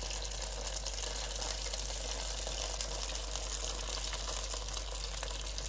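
A shrimp spring roll deep-frying in hot oil, about 200 °C, in an electric deep fryer: a steady sizzle full of fine crackling.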